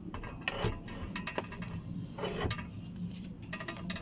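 Metal tools clinking and knocking against a bicycle's steel bottom bracket as the stuck part is worked loose: a string of sharp metallic clicks and knocks.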